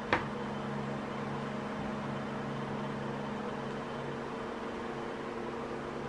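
Steady low machine hum with a few fixed tones, like a running fan or appliance motor, and one short click just after the start.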